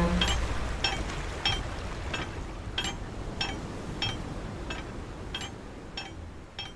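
Capstan pawls clinking as the capstan turns: sharp metallic clicks at a slow, even pace of a little under two a second, fading out. The last held note of the sung chord dies away at the very start.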